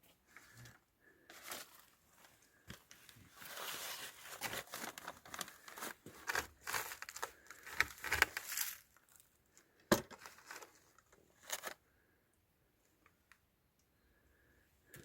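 Irregular crunching and rustling, like footsteps through dry debris in a burnt-out building. It is heaviest in the middle and is followed by a sharp knock about ten seconds in and a smaller one shortly after.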